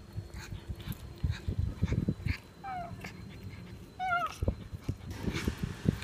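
Domestic cat crunching and chewing chicken bones: irregular cracking bites, two or three a second. Twice, about two and three-quarter and four seconds in, the cat gives a short wavering mew.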